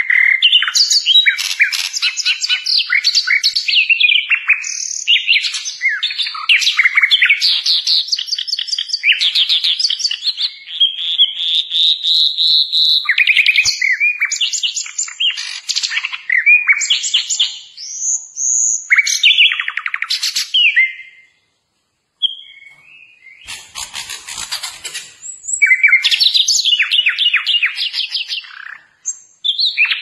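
A sikatan londo songbird singing a long, fast, varied song of chattering trills and high whistles. It breaks off briefly about two-thirds of the way through, then starts again.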